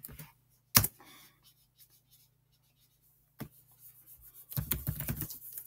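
Computer keyboard keystrokes: a single sharp keypress about a second in, another at about three and a half seconds, then a quick run of typing near the end. A faint steady low hum sits underneath.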